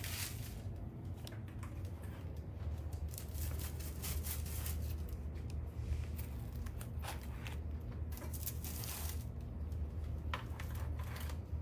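Light rustling and scraping of a utensil on foil-lined baking trays and a plate, in scattered short bursts over a steady low hum.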